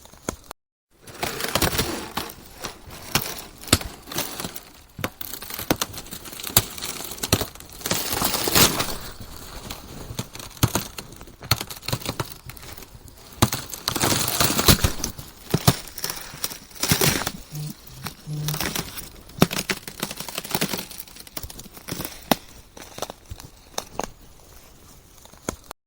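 Ice cracking and crackling in a dense run of sharp snaps, swelling into louder bursts every few seconds, with a brief cut to dead silence about half a second in.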